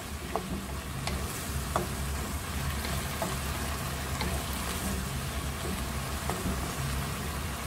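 Chicken mince sizzling in a nonstick wok while a wooden spatula stirs it, with scattered small pops, as the water the chicken released cooks off.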